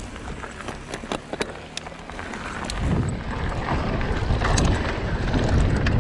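Mountain bike rolling out on a loose dirt track, first with scattered clicks and rattles from the bike. From about three seconds in, a loud rumble of wind buffeting the microphone and tyres on dirt builds as the bike picks up speed down the slope.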